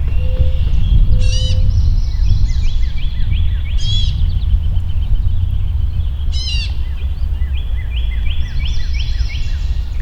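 Birds singing outdoors: long runs of quick repeated notes, broken three times by a short harsh call, over a loud low rumble.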